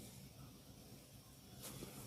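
Quiet, soft rubbing of hands during a massage, with one brief brushing stroke near the end, over a faint low hum.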